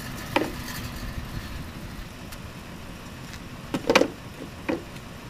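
Pickup truck engine idling steadily, with a few sharp knocks; the loudest come about four seconds in, as the poly snow pusher is handled beside the tyre on the asphalt.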